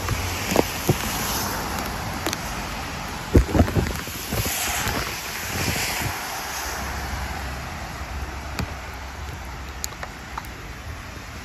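Wind buffeting a handheld phone's microphone over a steady hiss of light rain and traffic on a wet street, with a few thumps, the loudest about three and a half seconds in.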